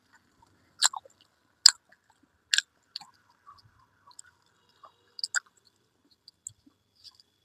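Close-miked chewing of rice and fried red amaranth greens, with wet mouth smacks and sharp clicks every second or so and quiet gaps between them.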